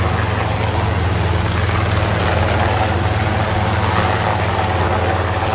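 Helicopter sound effect: steady rotor and engine noise with a strong low drone, cutting off suddenly.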